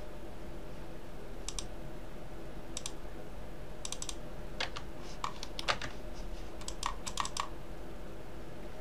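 Irregular light clicks from a computer mouse and keyboard, some single and some in quick little clusters, over a steady low electrical hum.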